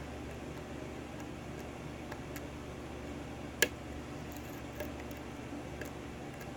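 Faint ticks of a pick working the pins of a 6-pin Dorma pin-tumbler lock, with one sharper click about three and a half seconds in, over a steady low hum.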